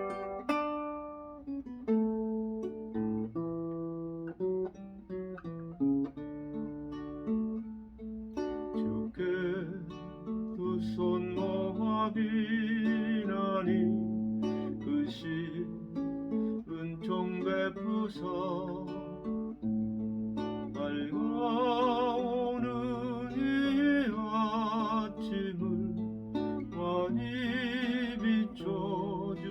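Acoustic guitar playing a gentle strummed and picked introduction to a worship song; about nine seconds in, a wavering melody line joins above the chords.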